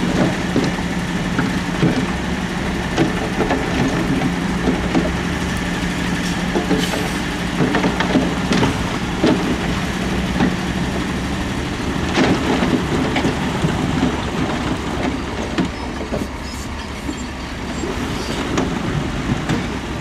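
Heavy diesel earthmoving machinery working: a steady engine drone with repeated clanks and rattles of metal and rock. The engine drone drops away a little over halfway through, while the clanking goes on.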